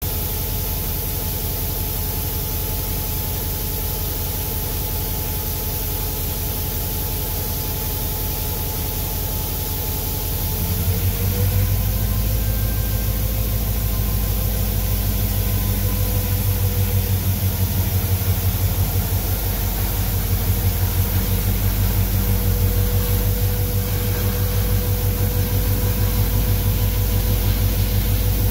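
EMD diesel-electric locomotive engine idling with a steady low throb. About ten seconds in it speeds up to a higher, louder running speed and holds there.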